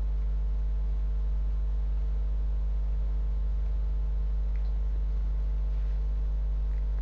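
Steady low electrical mains hum with fainter higher overtones, unchanging throughout.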